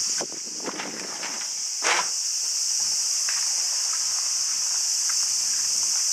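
Footsteps and rustling through grass, with a sharper scuff about two seconds in, over a steady high-pitched drone of insects.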